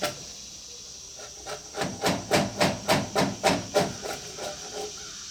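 Sharp 2-inch Robert Sorby flat chisel paring saw marks off a pine beam in quick scraping strokes, about three or four a second, after a short pause near the start. A steady high hiss runs underneath.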